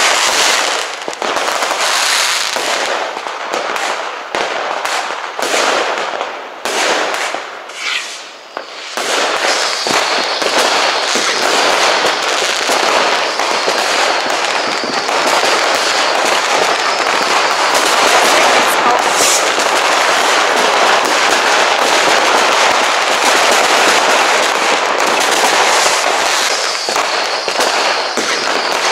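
New Year's Eve fireworks going off all around: rockets and firecrackers banging and crackling. Separate bangs come in the first several seconds, then from about nine seconds on they merge into a near-continuous dense crackle.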